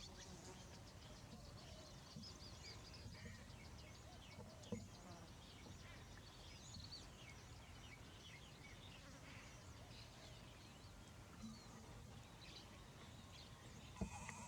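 Faint outdoor ambience of many small birds chirping over a low background rumble, with two sharp clicks, one about five seconds in and one near the end.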